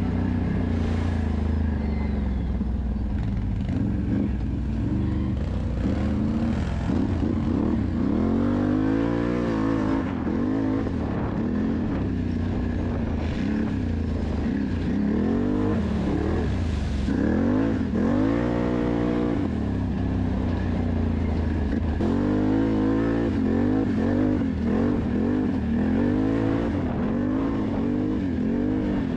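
Can-Am Renegade XMR 1000R ATV's V-twin engine being ridden hard on a dirt trail, revving up and down with the throttle. The pitch rises and falls every second or two.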